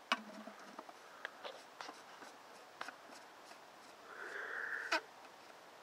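Light clicks and handling knocks on a home-made potato cannon, then an aerosol can of hairspray hissing for just under a second as it fuels the combustion chamber, ending in a sharp click.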